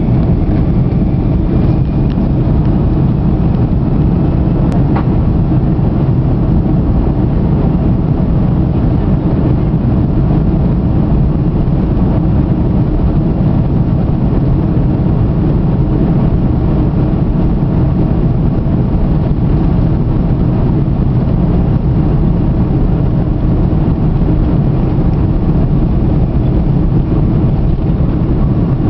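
Airliner jet engines at takeoff power during the takeoff roll, heard from inside the passenger cabin as a steady loud noise.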